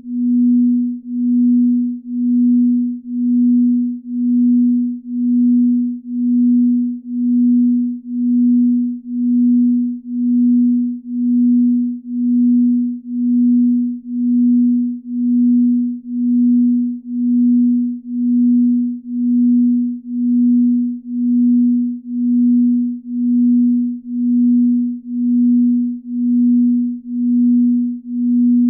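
Binaural-beat tone: a single steady, low, pure hum that swells and fades evenly about once a second.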